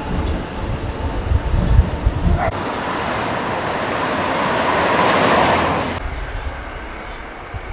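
Vehicle noise: a low rumble, then a rushing noise that swells to a peak about five seconds in and cuts off suddenly.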